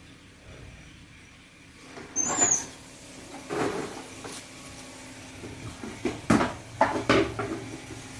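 An electric rice cooker being handled, its metal inner pot and hinged lid knocking and clattering several times; the first clatter, about two seconds in, carries a brief high metallic scrape, and the loudest knocks come in a cluster a little past six seconds.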